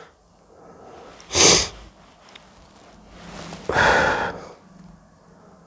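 A man's breaths close to the microphone: two short, noisy bursts about two and a half seconds apart, the second a little longer.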